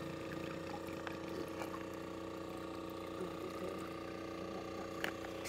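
Small motor of a boat's net-hauling winch running with a steady hum. A few faint ticks and knocks sound over it, one of them a little louder about five seconds in.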